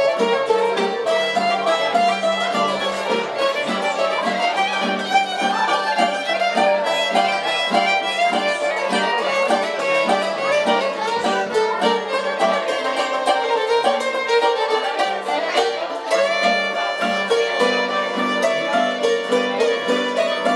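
Greek folk band playing a lively tune: violin leading over guitar, banjo and santouri, with quick plucked and struck notes on a steady beat.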